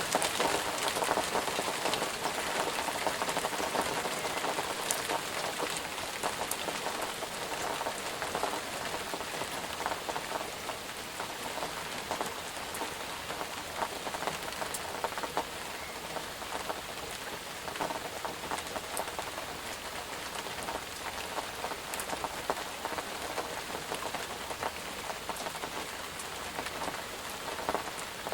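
Steady rain falling on a surface, with a dense patter of individual drops. It is a little louder in the first few seconds, then even.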